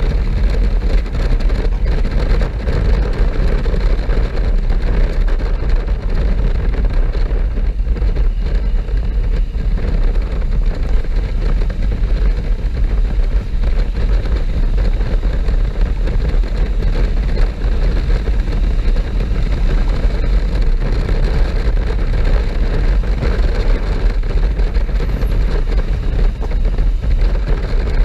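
Honda NC750S's parallel-twin engine running at road speed on a motorcycle ride, with steady wind rush on the bike-mounted microphone.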